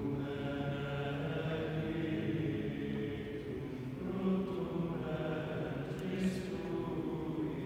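A male schola sings chant a cappella in long held notes, with several voices together. The notes change to a new phrase about four seconds in.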